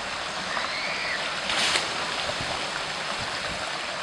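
Shallow stream running steadily over rocks, with a brief splash of water about one and a half seconds in.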